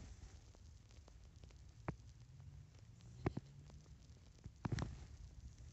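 Quiet, with a few soft clicks and rustles close to the microphone over a faint low steady hum.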